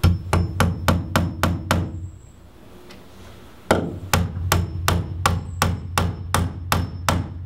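A hammer striking wooden roof framing in steady, repeated blows. There is a quick run of about seven blows, then a pause of nearly two seconds, then a run of about a dozen more at roughly three a second.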